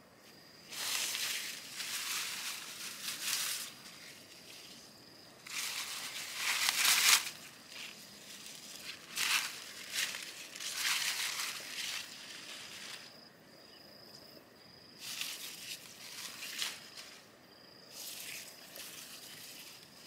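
Leafy plants pulled up and torn by hand, in repeated bursts of rustling and tearing, the loudest about seven seconds in.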